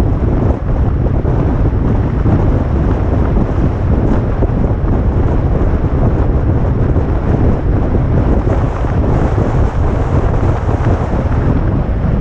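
Heavy wind noise buffeting the microphone of a camera on a moving vehicle: a loud, steady low rumble that drowns out everything else.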